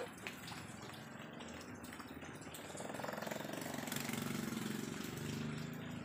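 A small engine running with a fast, even pulse, growing louder about three seconds in, over a steady background hiss.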